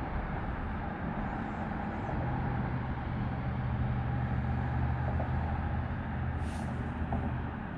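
Low, steady engine hum over a rushing background, swelling about two seconds in and easing off near the end, with a brief high hiss just before it fades.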